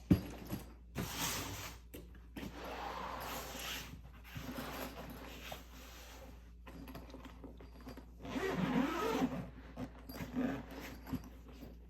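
A cardboard shipping box being opened and unpacked by hand: packing tape ripping and cardboard and paper rustling in several bursts, with a sharp snap right at the start.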